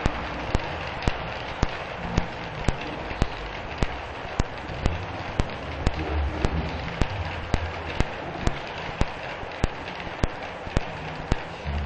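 Model train of two SBB Re 482 electric locomotives and Shimms coil wagons rolling along the track: a steady rolling hiss with sharp, evenly spaced clicks about twice a second and a low hum that swells and fades.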